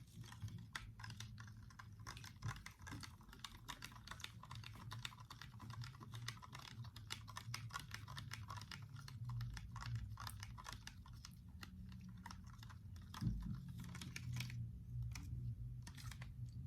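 Quick, irregular light clicks and ticks of a spoon stirring a sticky slime mixture in a bowl, thinning out near the end, over a faint steady low hum.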